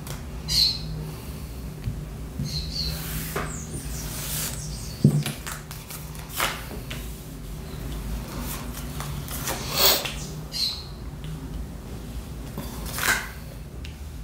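Pet parakeets chirping and squawking in short, scattered calls, with a few brief rustling sounds between them over a low steady hum.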